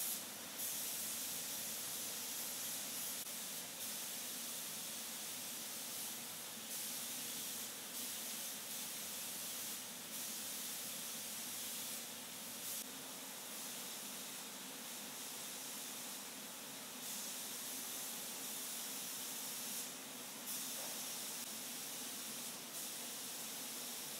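Hand-held compressed-air paint spray guns hissing steadily, growing louder and softer every few seconds as the triggers are pulled and eased.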